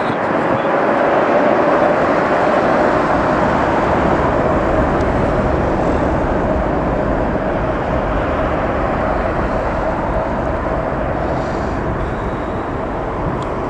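Jet engine noise from a Boeing 787 Dreamliner's Rolls-Royce Trent 1000 engines on the landing rollout: a steady whine over a broad rumble. It swells in the first couple of seconds and then slowly fades as the airliner slows down the runway.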